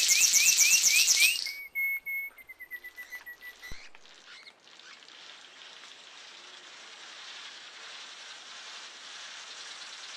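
Small bird giving a rapid run of rising chirps, about six a second, that stops abruptly about a second and a half in. Two short whistled notes follow, then only a faint steady hiss.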